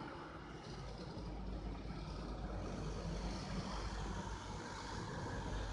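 Wind buffeting the microphone: a steady low rumbling roar with a hiss above it, getting a little louder about a second in.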